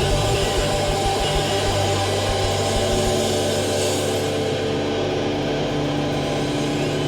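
Live hardcore punk band playing loud distorted electric guitars. About four seconds in the full-range playing thins out, leaving guitar and bass notes held and ringing on steadily.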